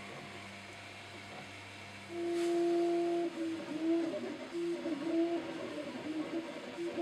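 A faint steady hum, then from about two seconds in a 3D printer's stepper motors whine as the print head moves. The pitch holds for about a second, then keeps stepping and gliding up and down with each move.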